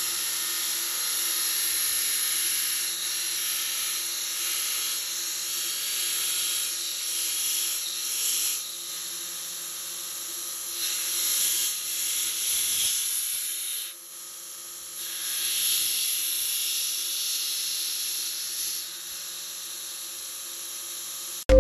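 Belt sander running, grinding a plastic action figure against its belt: a steady motor hum under a hissing grind that swells and dips as the figure presses into the belt. It stops suddenly just before the end.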